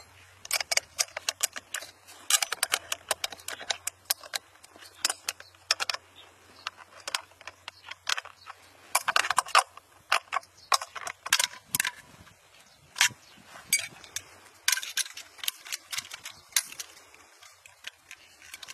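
Sharp cracks and pops in a rapid, irregular series, coming in clusters with short lulls between them; the loudest burst comes near the middle.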